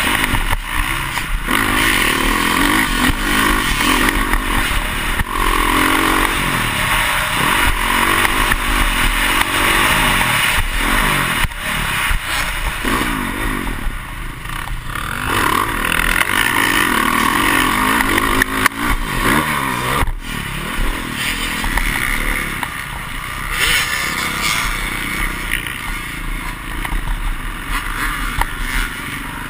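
Dirt bike engine heard close up from the bike itself, revving up and down over and over as it is ridden hard through a motocross track, with rushing wind noise and scattered knocks from the bike landing on bumps and ruts.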